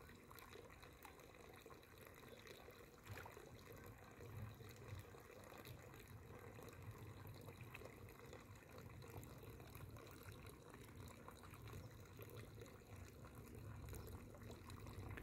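Near silence with faint pond water sounds: fish feeding on floating bread at the surface, with a couple of soft plops about three and four and a half seconds in.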